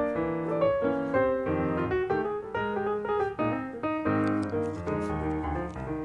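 Piano music: a quick run of notes and chords.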